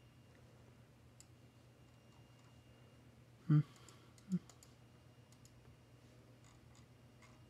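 Faint, scattered computer mouse and keyboard clicks. Two brief louder low-pitched sounds come about three and a half seconds in and again about a second later.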